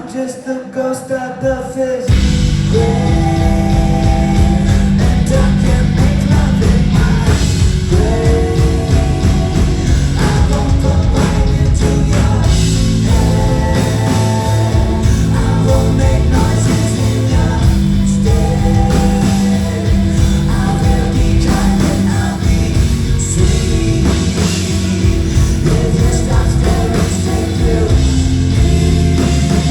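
Live rock band performing a song with singing. A quieter sung passage opens, and about two seconds in the full band comes in loudly and keeps going.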